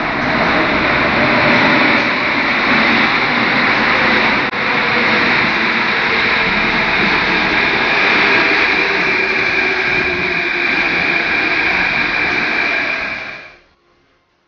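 Metro train pulling into an underground station: a loud, steady rumble with a held whine over it. It cuts off abruptly about a second before the end.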